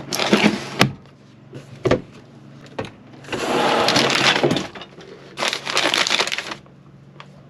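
A drawer of odds and ends shut with a clatter and a couple of knocks, then a wire pull-out pantry basket slid out of a cupboard, its glass jars, bottles and tins rattling and clinking against the wire in two longer bursts.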